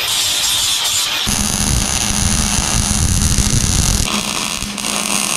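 Angle grinder working on the steel brackets of an E30 rear subframe, then, after about four seconds, the steady hiss and crackle of a MIG welder laying a bead on a camber/toe adjustment tab. The sound cuts abruptly between short clips.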